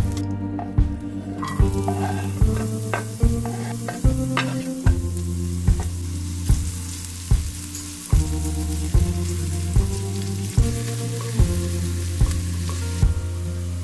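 Chopped onion and garlic sizzling in hot fat in a frying pan and being stirred with a silicone spatula, over background music with a steady beat.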